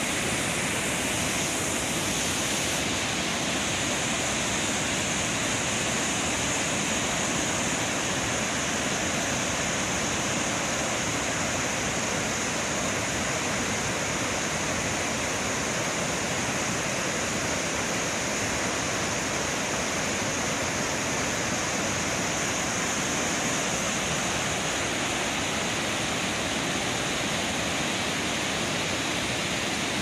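Waterfall: white water rushing steadily over a wide, rocky cascade, a continuous hiss with no breaks.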